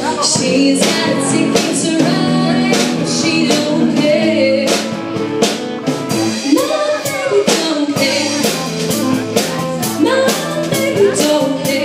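Live band playing a song: a woman singing, with electric guitar, bass guitar and a drum kit keeping a steady beat.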